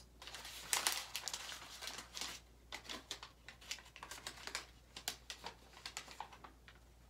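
Hands crumpling and rubbing something crinkly: a dense run of irregular crackles in the first couple of seconds that thins to scattered crackles towards the end.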